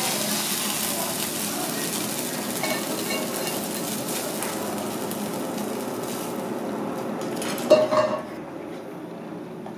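Hot stir-fry sizzling in a pan as it is pushed out onto a plate with wooden chopsticks, with a few light clinks; the sizzle fades away after about six seconds. A single sharp knock comes about eight seconds in.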